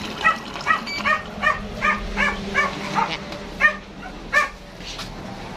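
A dog barking in a quick run of about ten short barks, two to three a second, stopping about four and a half seconds in.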